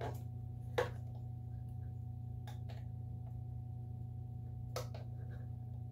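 A few faint, short plastic clicks and taps as a battery pack's wire plug is worked by hand into the socket inside a radio-control transmitter's battery bay, the clearest about a second in, over a steady low hum.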